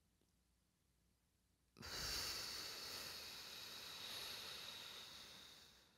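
A woman's long, airy breath out, close to the microphone, starting suddenly about two seconds in and fading away over about four seconds.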